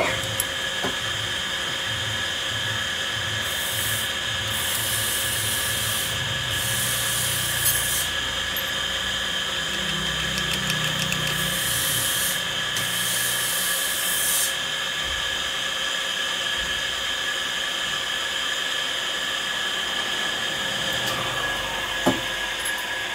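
Workshop machine motor running with a steady high whine. Several bursts of hissing come and go in the first half, and a single sharp knock sounds near the end.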